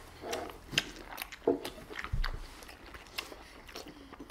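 Whole unpeeled oranges being bitten into and their peel torn and chewed, heard as irregular sharp wet clicks and crunches.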